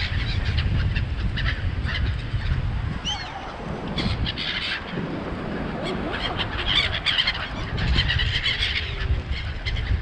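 A flock of black-headed gulls calling over the water, the calls coming thicker in the second half, with wind buffeting the microphone.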